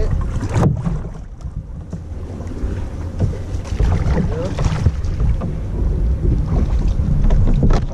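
A kayak being handled and pushed off the bank: knocks and scrapes on the hull over a heavy low rumble of wind on the microphone.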